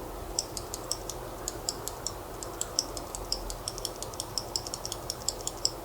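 Lubed Marshmallow mechanical keyboard switch pressed and released over and over, a quick run of light clicks, several a second.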